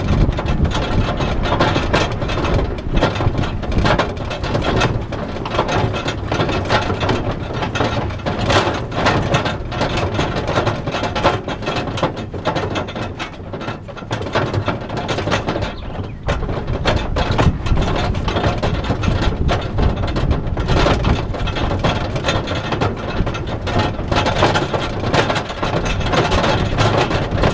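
Mountain bikes and their rack rattling and clattering steadily as the vehicle carrying them jolts over a rough sandy dirt road, with the vehicle's running and road noise underneath.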